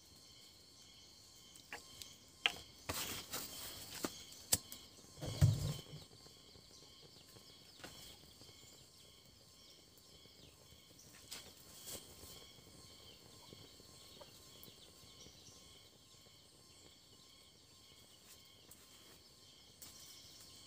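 Faint outdoor ambience with insects chirping steadily in thin high tones. A few sharp clicks and brief rustling bursts come about two to six seconds in, the loudest a dull thump, and a couple more clicks follow near the middle.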